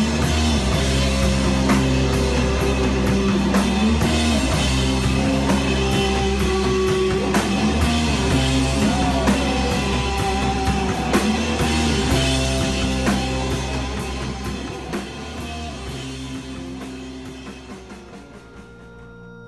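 Rock band playing loud, with distorted electric guitar and a drum kit hitting hard. Over the last few seconds the drums stop and the music dies away to a few ringing, sustained guitar notes.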